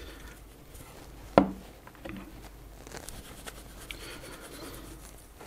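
Faint rubbing and rustling of a moist baby wipe as a mouse ball is wiped clean by hand, with one sharp click about one and a half seconds in.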